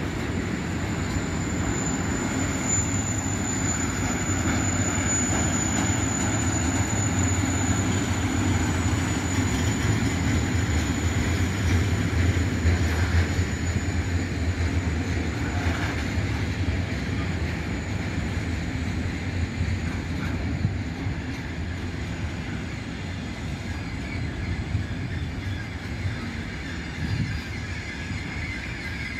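Intermodal freight train of container flat wagons rolling past at steady speed: a continuous low rumble of wheels on rail. A thin high squeal sits over it at first and fades out after several seconds.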